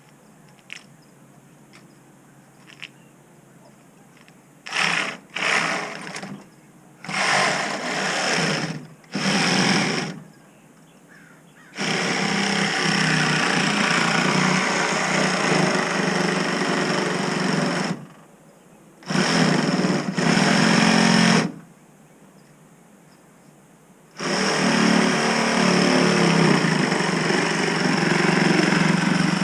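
A motorized power tool run in bursts: a few short bursts, then longer runs of several seconds each, stopping twice and starting again.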